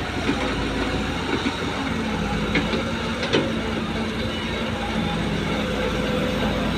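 Hyundai wheeled excavator's diesel engine running steadily under load while it dumps sand and swings its bucket back to dig. A few sharp knocks come near the middle.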